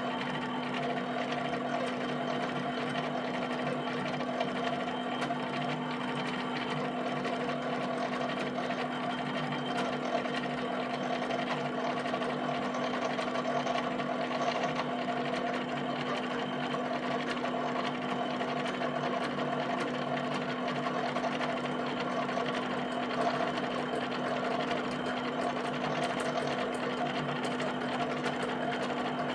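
HP 7585B pen plotter drawing a field of halftone dots: a steady, busy mechanical whirring of its pen carriage and paper drive over a constant low hum.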